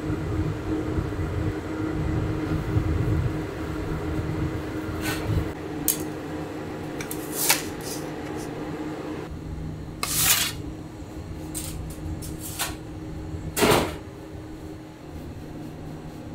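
Conveyor pizza oven running with a steady hum, with several short metal clinks and knocks of pizza pan and peel, the loudest about ten and fourteen seconds in.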